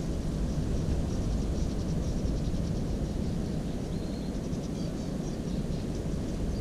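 Wind rumbling on the microphone, with faint, rapid high-pitched ticking and short chirps through the middle and a brief high note about four seconds in.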